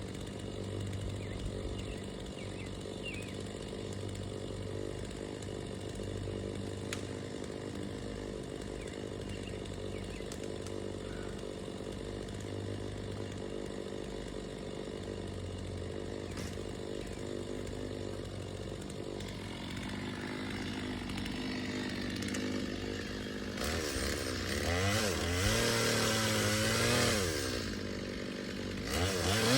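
Two-stroke chainsaw running at a steady pitch, then revving up and down, louder and harsher, for several seconds near the end.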